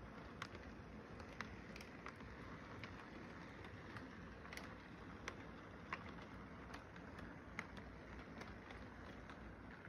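Model train cars rolling along sectional track: a faint steady rumble with light sharp clicks about once a second as the wheels cross the rail joints.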